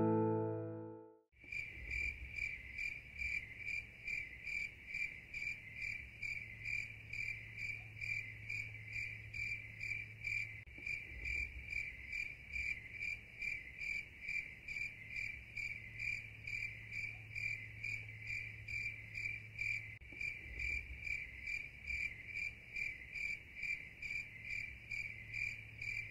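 Acoustic guitar music fades out in the first second. Then comes a steady, rhythmic high-pitched chirping from an insect, about two to three chirps a second, over a faint low hum.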